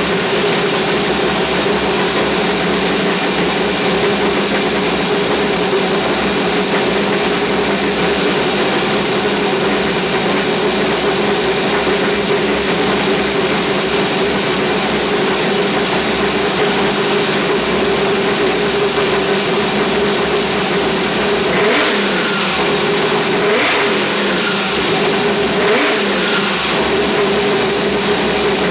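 Ford 302 V8 with Trick Flow heads, a Crane 2031 cam and long-tube headers into an X-pipe and Borla Stingers, running on its first startup after the build. It idles steadily and is revved briefly three times near the end.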